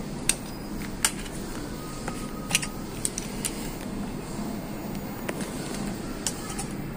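A cardboard wallet box being handled and set down on a table: several short sharp taps and clicks at irregular intervals over a steady low background hum.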